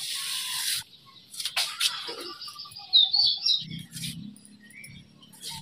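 Fresh taro stalks being sliced on a boti, a fixed upright blade: a crisp scraping cut near the start, then a couple of sharp snaps. A few high chirps about three seconds in are the loudest moment.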